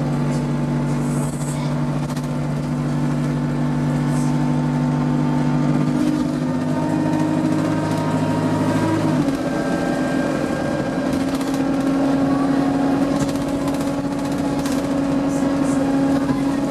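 Single-deck bus's diesel engine and drivetrain heard from inside the passenger saloon as it drives: a steady droning note that climbs slightly, then changes pitch abruptly about nine seconds in and settles on a new steady note. Faint light rattles come through now and then.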